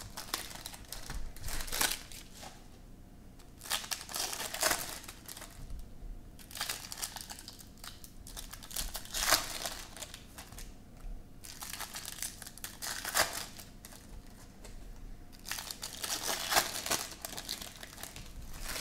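Foil trading-card pack wrappers crinkling and tearing as packs are ripped open and the cards pulled out, in bursts of a second or two with short quiet lulls between.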